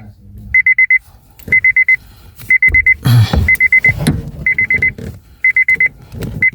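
Electronic beeper sounding a quick run of high beeps about once a second, over and over, with a few dull knocks near the middle.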